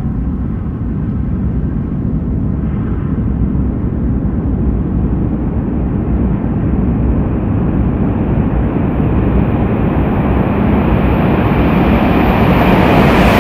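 ICE high-speed train approaching inside a tunnel: a low rumble that grows steadily louder and brighter as the train nears the portal.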